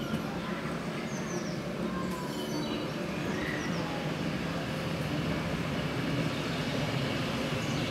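Double-deck electric tram, Leeds car 399, rolling slowly along street rails as it approaches, with a steady low rumble of wheels and traction gear.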